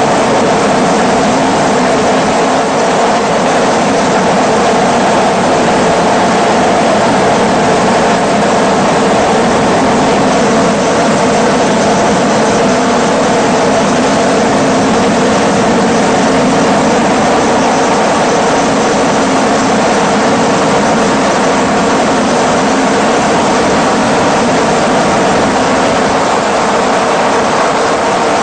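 Steady, loud engine and rotor noise of a helicopter heard from inside the aircraft, unchanging throughout.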